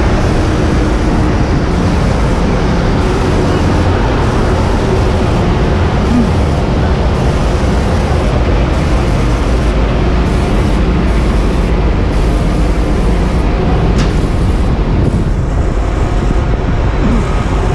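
Steady engine drone of a fire truck running beneath its extended aerial ladder, with one sharp click about fourteen seconds in.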